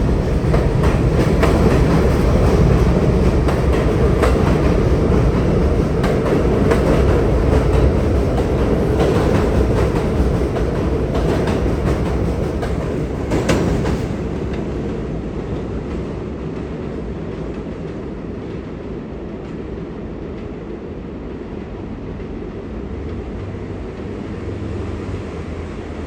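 Pullman Standard R46 subway train running, its wheels clacking over the rail joints. The sound dies down after about 14 seconds to a steadier, quieter rumble.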